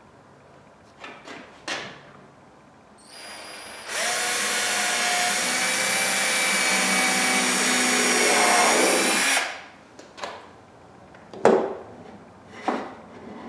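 Cordless drill boring a hole into a wooden block: a short, quieter start, then about five seconds of steady drilling with a high whine, winding down as the trigger is released. A couple of sharp knocks follow near the end.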